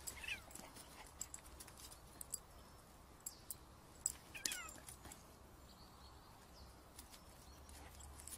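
A cat and a dog play-fighting, heard faintly: scattered soft rustles and clicks of paws scuffling on leaf-strewn ground, with two short, high cries that fall in pitch, one near the start and a stronger one about four and a half seconds in.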